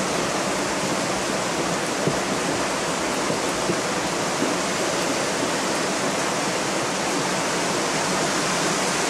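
Steady rushing noise of a storm outside, with a couple of faint ticks.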